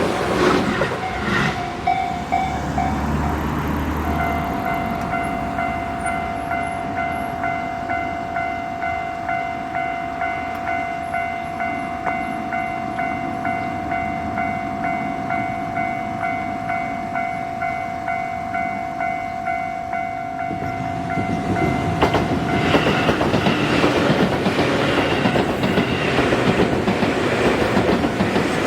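Japanese level-crossing warning bell ringing in a steady, regular beat. About 21 seconds in, a Tobu Noda Line electric commuter train runs through the crossing, its wheels clattering over the rail joints and its passing noise drowning out the bell.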